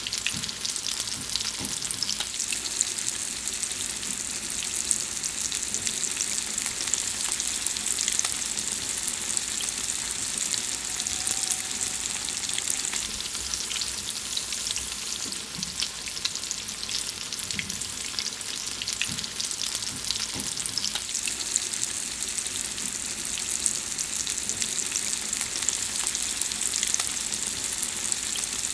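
Food frying in hot fat: a steady, dense sizzle full of small crackling pops that never lets up.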